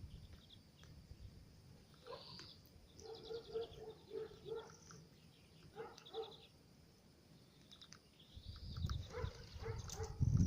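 Tits giving short, high, repeated chirping calls. Low bumping thuds come in during the last couple of seconds.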